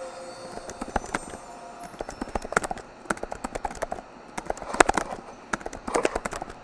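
Irregular sharp clicks and knocks, several a second, with louder clusters near the middle and toward the end.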